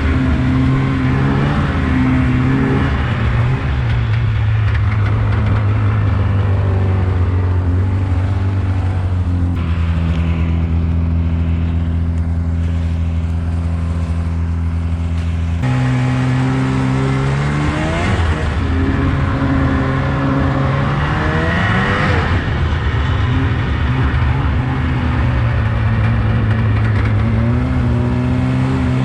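Two-stroke snowmobile engine under way. It holds a steady pitch for several seconds, then the throttle is worked up and down, with the revs rising and falling again and again.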